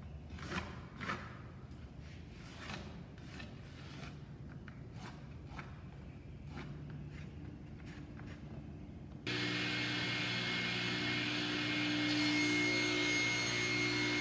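A pencil scratching out a line on a pine board in faint, separate strokes. About nine seconds in, a large band saw takes over, running with a steady hum and a thin high whine.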